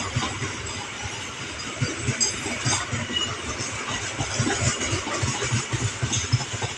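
A train running past at close range: a steady noisy rumble with irregular low knocks.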